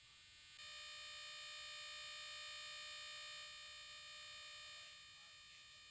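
Faint, steady, high-pitched electronic buzz made of many even overtones. It starts about half a second in, drops a little past the middle and cuts out about five seconds in.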